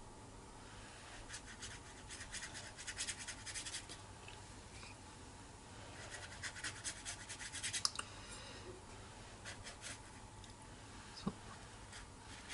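A watercolour paintbrush scrubbing and scratching in quick strokes on the palette and paper, in two spells of two or three seconds each, with a few light ticks after them.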